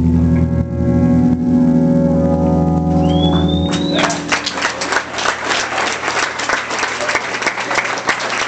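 A live rock band's final chord, electric guitar and bass, rings out and fades, with a rising whistle from the crowd near the middle. About four seconds in, the audience breaks into applause and cheering.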